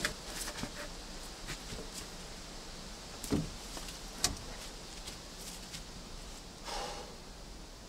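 Wooden poles knocking together as a log pole is set against a leaning stack of poles: a dull thud about three seconds in, a sharp knock a second later, scattered light clicks, and a brief rustle near the end.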